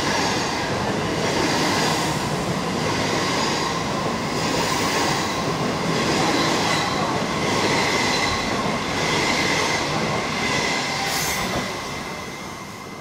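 Steel wheels of a string of 25T passenger coaches running past at speed: a steady rushing rumble that swells in a regular rhythm about once a second, with a thin steady squeal over it. It dies away near the end as the last coach clears.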